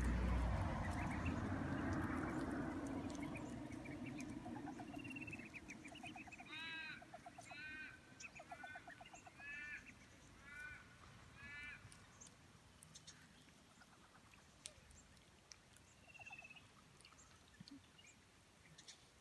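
Waterbirds at a pond edge calling: a run of about six short, pitched calls, roughly one a second, starting about six seconds in, with a few scattered calls after. A low rumbling noise at the start fades away over the first few seconds.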